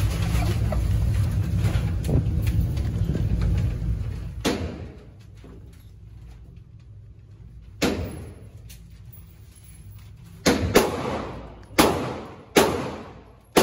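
Handgun shots at an indoor shooting range: five sharp reports, each with a ringing echo, the first about four and a half seconds in and the last three coming closer together near the end. Before the first shot, a steady low rumble.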